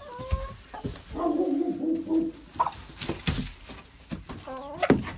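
Domestic hens clucking and calling, with one long drawn-out call about a second in and short rising calls near the end. A few sharp knocks come near the middle, the loudest just before the end.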